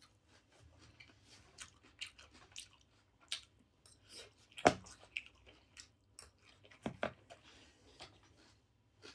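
Close-up chewing and mouth sounds of someone eating: a scatter of short, moist clicks. The loudest is a sharp click about halfway through, then two louder clicks a couple of seconds later.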